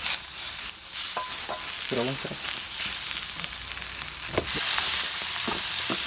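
Grasshoppers and eggplant sizzling in hot oil in a pan, stirred, with short scrapes and knocks of the stirring utensil against the pan now and then.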